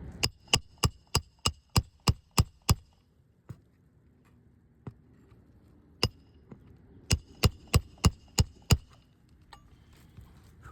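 Roofing hammer striking a metal roof snake to drive roofing nails back in under asphalt shingles, each blow ringing. A quick run of about nine strikes, a single strike about six seconds in, then another run of six.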